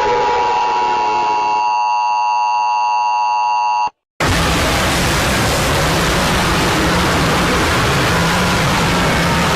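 Loud, heavily processed sound effects: a falling tone over noise gives way to a steady harsh buzzing tone, which cuts off suddenly at about four seconds; after a brief silence, a dense roar of harsh noise runs on.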